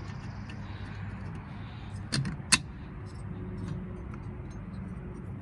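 Two sharp metal clinks a moment apart, about two seconds in, as the finned cylinder head of a two-stroke bicycle engine is handled and set down onto its cylinder studs, over a steady low background rumble.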